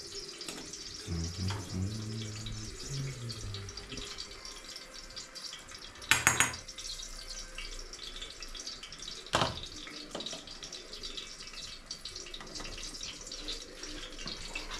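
A pot cooking on a gas stove gives a steady, watery hiss. A sharp clatter of kitchen utensils comes about six seconds in, and a shorter knock about nine seconds in.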